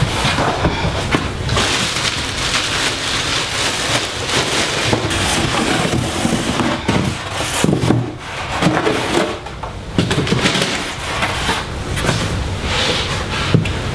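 Continuous rustling and crackling with scattered knocks, from plastic disposable litter boxes and a plastic bag being handled and set down on the floor.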